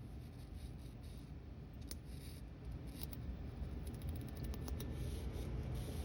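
High-voltage arcing, about 25 kV, from a CRT television's high-voltage supply: irregular crackling snaps over a low steady hum.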